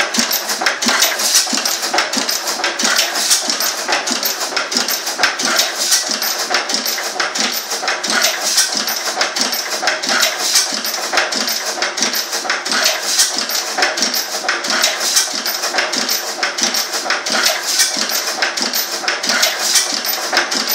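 Benz & Spol single-cylinder horizontal stationary engine running steadily, its mechanism making a rapid, even clatter of sharp ticks.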